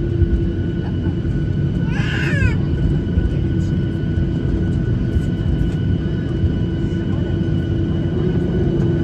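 Cabin noise of a Boeing 737 taxiing with its engines at idle: a steady low rumble with a few steady whining tones. About two seconds in, a brief high-pitched cry from a voice cuts across it.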